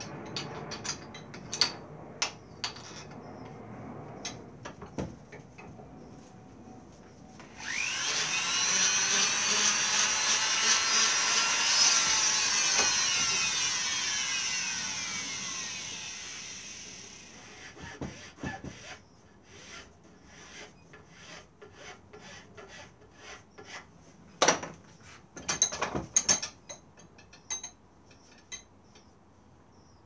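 Clicks and knocks of tools and wood being handled at a workbench. About seven seconds in, a small power tool starts with its pitch rising, runs for a few seconds and then slowly winds down. After it stops there are more scattered knocks and clatters, with a few sharper ones near the end.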